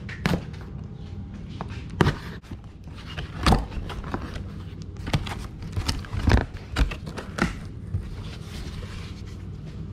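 Cardboard shipping box being opened by hand: its plastic wrap torn and the flaps pulled open and folded back, giving irregular rustles, scrapes and sharp thumps, the loudest a few seconds apart.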